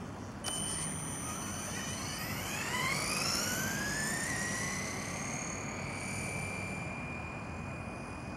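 Brushless Traxxas Rustler RC car accelerating: a high electric whine from the motor and gearing that climbs in pitch for a few seconds, then holds steady at speed.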